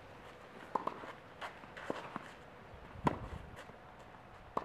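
Tennis rally on a clay court: sharp pops of the ball off racket strings every second or so, the strongest a little past three seconds and near the end, with softer ball bounces and shoes scuffing on the clay in between.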